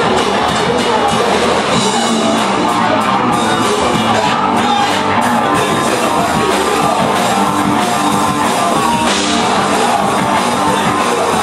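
Loud rock music with a drum kit and singing.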